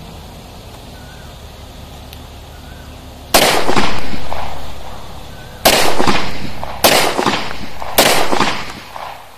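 Four shots from a Beretta 92FS-pattern 9 mm pistol, the first about three seconds in and the rest at roughly one-second gaps, each followed by a long echo dying away. The firing stops after the fourth shot with a stoppage, which the shooter blames on a cheap, slightly oversized local round.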